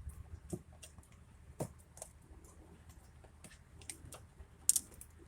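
Scattered light clicks and taps of hard plastic door trim parts being handled and fitted into a truck door, the loudest a sharp pair of clicks near the end.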